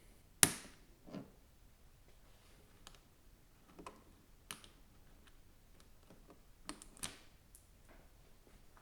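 Sharp plastic clicks and snaps of a blow-molded plastic tool case being unlatched and opened, the loudest snap about half a second in and a few softer clicks after it, with a quick pair near the end.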